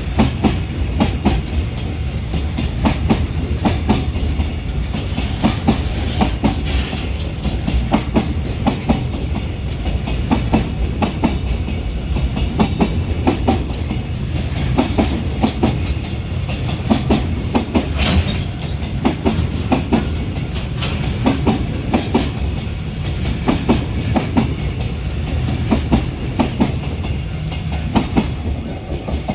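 Container wagons of a freight train rolling past. The wheels clack over rail joints in a regular repeating pattern over a steady low rumble.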